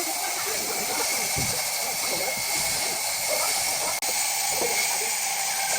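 A steady hiss with a few faint knocks, cut off for an instant about four seconds in.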